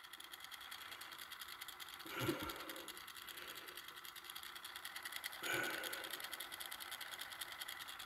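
Pioneer CT-F900 cassette deck transport running in play with no cassette loaded, the capstan motor turning the take-up spindle through the newly fitted idler tire. A faint, steady mechanical running sound with a fast, fine ticking, and a soft bump about two seconds in and again about five and a half seconds in.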